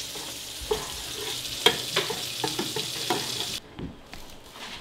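Food sizzling in a pan on the stovetop, with a few light knocks of a utensil against the pan; the sizzle cuts off suddenly about three and a half seconds in.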